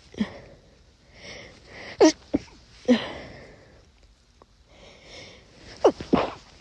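Stifled sneezes from a person with a cold, held back to keep quiet: a sharp pinched one about two seconds in, a smaller one just after, and two in quick succession near the end, with hissing breaths drawn in between.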